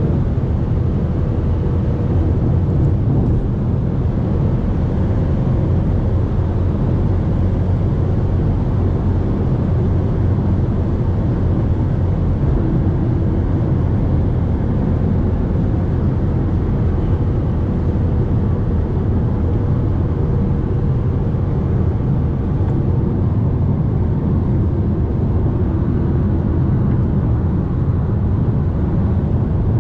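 Steady cabin noise of a Fiat Toro Volcano diesel pickup cruising on the highway: engine drone, tyre and wind noise, even in level throughout.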